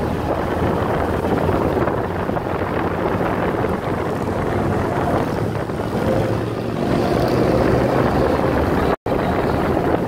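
Motorcycle engine running steadily while riding, with wind buffeting the microphone. The sound cuts out for an instant about nine seconds in.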